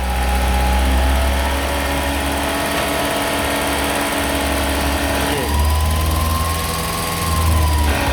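Car engine idling while the air-conditioning compressor clutch cycles on and off, the sound changing about five and a half seconds in and again near the end. The noise comes from the A/C compressor clutch.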